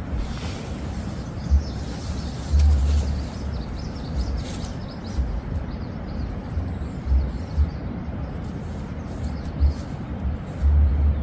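Steady rain during a mountain storm, with irregular low rumbles of wind gusts buffeting the microphone.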